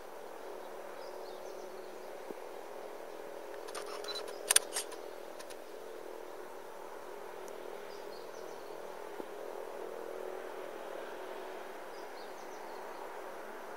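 Steady low hum of outdoor ambience with faint high bird chirps now and then, and a short cluster of sharp clicks about four and a half seconds in from the handheld camera being handled.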